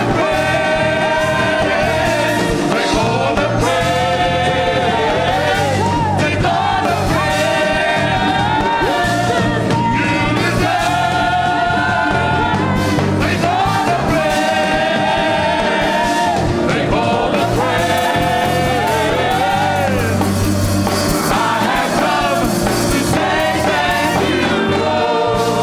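Upbeat gospel song with several voices singing together over a band, with a steady bass line underneath.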